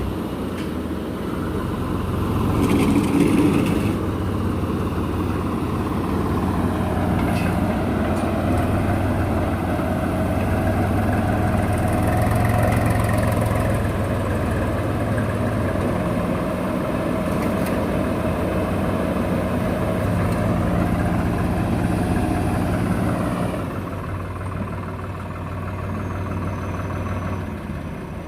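Heavy diesel engines of a JCB backhoe loader and a tractor running steadily under load while the backhoe pulls the tractor out of swampy mud. The engine note eases about three-quarters of the way through.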